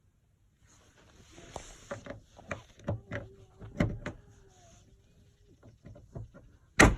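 Hard plastic clicking and knocking as pliers squeeze the clips of a windshield washer nozzle, ending near the end with one loud snap as the nozzle pops free of its mount.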